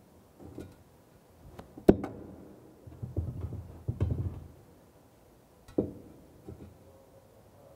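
Knocks and scraping from a steel rule set on the rim of a ceramic sink pedestal while the pedestal is nudged into position. A sharp knock about two seconds in is the loudest, with another near six seconds.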